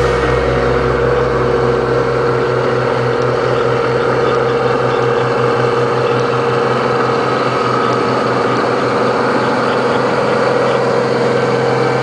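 Combine harvester's engine and machinery running steadily, an even mechanical hum.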